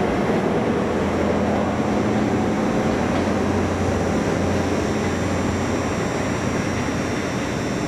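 Train running at a platform: a steady engine rumble with a low hum and a faint high whine.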